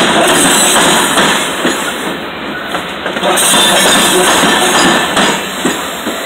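Freight train of covered hopper cars rolling past close by, with steel wheels clanking and clicking over the rail joints.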